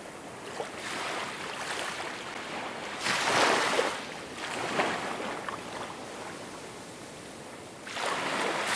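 Ocean surf washing onto a sandy beach, surging louder about three seconds in and building again near the end.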